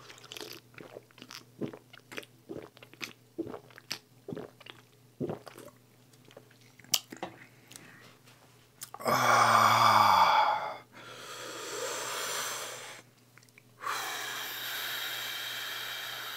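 A person gulping cola from a can, a run of short wet swallowing clicks for about eight seconds. Then comes one loud burp with a falling pitch about nine seconds in, followed by two long breathy exhales.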